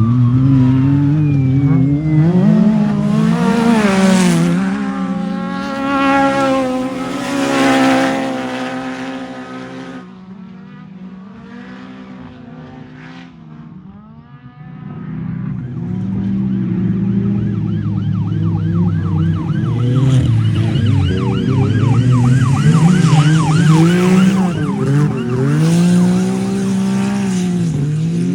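Off-road race car engine revving, its pitch rising and falling again and again as it is driven hard. About ten seconds in it drops to a quieter, lower run for several seconds before picking back up.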